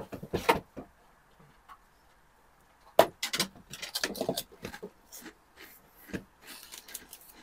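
Walkers Max ridged potato crisps crunching as they are bitten and chewed: one sharp crack about three seconds in, then a run of quick crackly crunches. The foil crisp packet rustles near the end as a hand goes into it.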